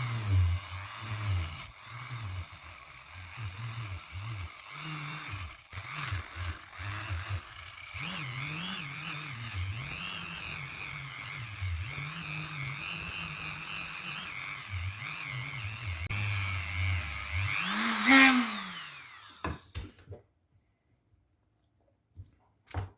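Dremel rotary tool spinning a hook-and-loop sanding pad at low speed, its whine wavering up and down as the pad is worked against the part. About eighteen seconds in it is switched off and winds down with a falling pitch, followed by a few light clicks.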